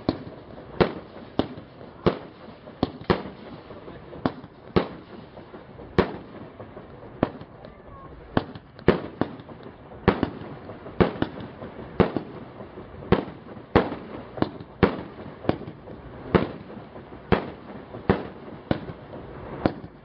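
A 200-shot firework battery (cake) firing its shots in a steady run, a sharp bang about every half second to second.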